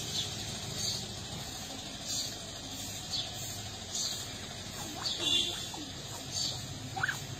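A bird chirping in short high notes, about once a second, over a steady low background hum, with a couple of quick rising squeaks near the end.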